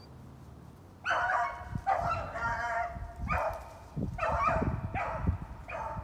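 Beagle baying on a rabbit's track: about five drawn-out bawling calls, starting about a second in.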